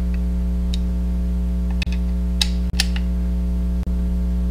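Steady electrical mains hum, with a few faint clicks from a Phillips screwdriver tightening screws into a water-cooling pump top.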